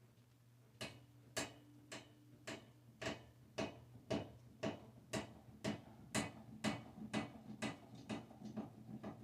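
Monte Carlo ceiling fan speeding up on its high setting: a faint motor hum with sharp, regular ticks that start about a second in at about two a second and come faster, near three a second by the end, keeping pace with the rising blade speed.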